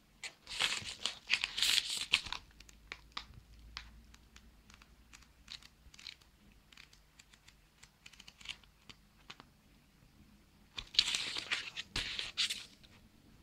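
Crumpled paper mailer envelope crinkling and rustling as it is handled, in two louder bursts, one just after the start and one near the end, with light papery clicks of book pages being flipped in between.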